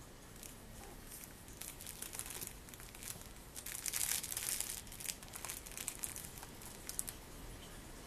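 A kitten's claws scrabbling and scratching on a corrugated-cardboard cat scratcher as it wrestles a plush toy: a dry, crinkly rasping with scattered sharp clicks, loudest around four seconds in.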